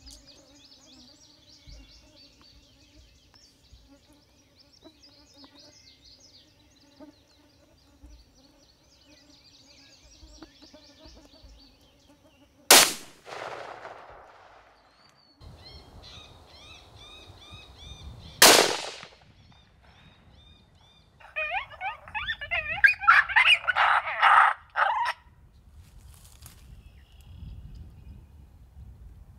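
Two gunshots about six seconds apart, the first with a short echo, then a few seconds of loud, rapid yipping and howling from coyotes. Faint bird and insect chirping runs underneath at first.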